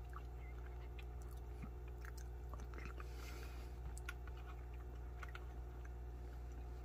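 Faint eating sounds: chewing, with small scattered clicks of a spoon scraping and tapping in a plastic food tray, over a steady low hum.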